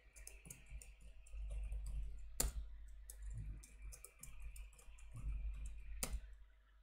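Computer keyboard typing: runs of light key clicks, each ended by a louder keystroke, one about two and a half seconds in and one about six seconds in. This is a password being typed and then retyped, each entry finished with the Enter key.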